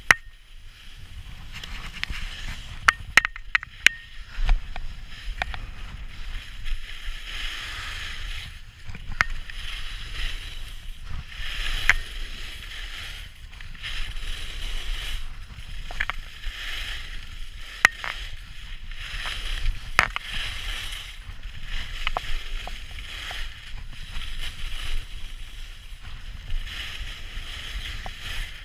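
Skis scraping and carving across packed snow through a series of turns, the hiss swelling and fading with each turn, with occasional sharp clicks and a low wind rumble on the microphone.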